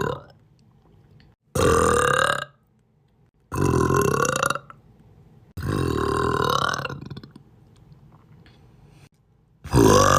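A person burping repeatedly, about one burp every two seconds: the tail of one burp at the start, then three long burps, the third the longest at over a second, and another starting near the end.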